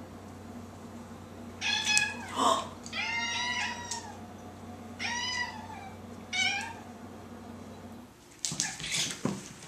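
Domestic cats in a standoff, one giving a series of drawn-out, wavering yowls, four or five in all, with short pauses between them, over a steady low hum. Near the end the hum stops and a quick flurry of short sharp clicks and scuffling noises follows.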